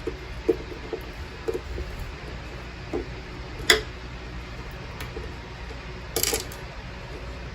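Small clicks and taps of hand work with tools and trim parts on a car's dashboard: a few soft taps in the first two seconds, a sharp click a little before the middle, and a short rattle near the end.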